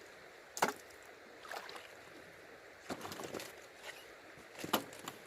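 Irregular knocks and clatters of stones and gravel being worked in shallow river water, about five short strokes over a faint steady hiss of water.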